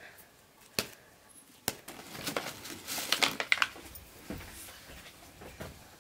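Kitchen handling sounds: two sharp clicks, then a stretch of crinkling from a foil packet being handled and poured over a metal bowl of flour, fading to light handling noise near the end.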